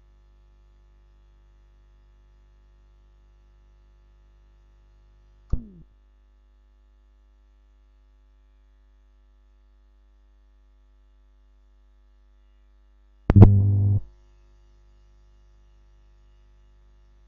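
Steady low mains hum in the recording during a pause in the talk. It is broken by a short falling blip about five and a half seconds in, and by a loud, brief low-pitched burst of under a second at about thirteen seconds.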